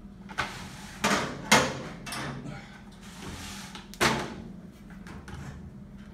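Sharp metal knocks and clanks as a commercial deep fryer's drain pipe and cabinet door are handled and taken off, the loudest about a second and a half in and about four seconds in, over a steady low hum.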